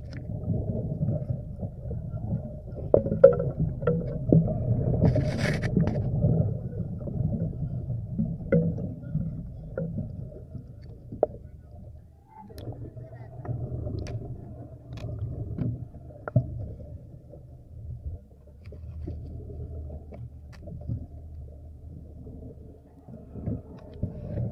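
Muffled underwater sound picked up by a submerged camera: a low rumble and sloshing of water, with scattered knocks and taps as fish bump against it, and a brief hiss about five seconds in.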